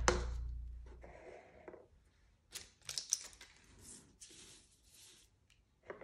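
Background music fading out over the first second, then scattered light clicks and rustles of art supplies handled on a wooden desk: pens and a brush set down, a small plastic case handled, paper drawings slid across the tabletop.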